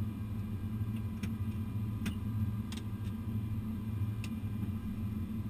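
Steady low hum of an airliner cockpit while the aircraft taxis, with about four sharp clicks scattered through it.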